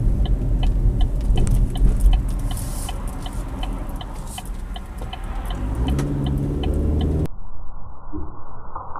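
Car cabin sound: the turn-signal relay ticking about twice a second over the engine's low rumble, and about six seconds in the engine's pitch rises as it speeds up. Near the end the sound turns suddenly muffled.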